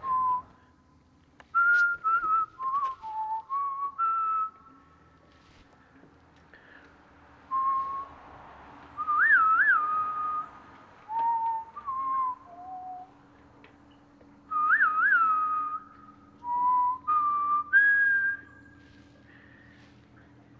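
A person whistling a tune: clear held notes with small pitch flicks and quick trills, in three phrases separated by pauses of a couple of seconds.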